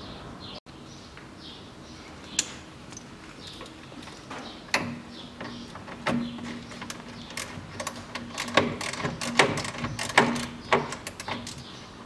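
Scattered sharp metallic clicks and knocks at irregular spacing, starting about a third of the way in, from a hand tool working the bolts that hold a car's radiator cooling-fan shroud.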